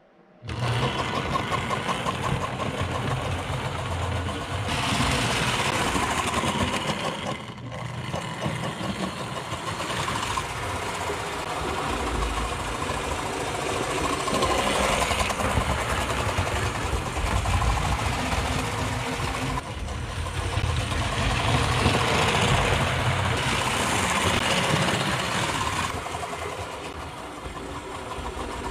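Vintage Tri-ang Hornby OO-gauge model locomotive running on the layout, its small electric motor and wheels on the track making a steady rapid mechanical rattle, together with the chuffing of its tender's Realistic Steam Sounds mechanism, which is driven from the tender axle so it keeps pace with the train's speed. The sound swells and fades as the train passes closer and further away.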